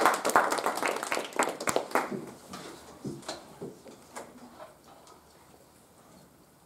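A small group clapping, dying away over the first two seconds or so, followed by a few scattered light knocks and taps.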